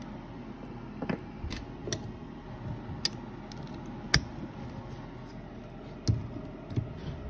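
Scattered small clicks and taps of metal bolts and hand tools handled on a wooden workbench, about seven over several seconds.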